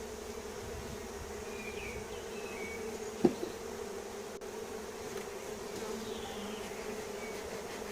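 Honeybee colony buzzing steadily at an open hive; the bees are stirred up by the inspection, with smoke in use to calm them. One brief knock about three seconds in.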